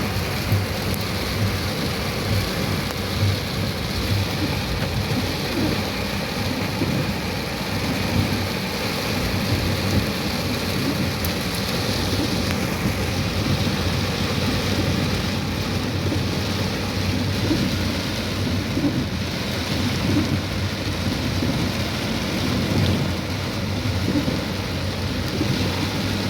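Steady, continuous rush of water with a low rumble underneath.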